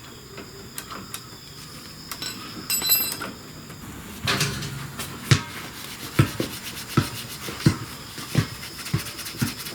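Small metal tools and parts clinking and tapping, with a brief metallic ring about three seconds in. From about four seconds in, short rubbing strokes on metal follow one another at about one and a half a second.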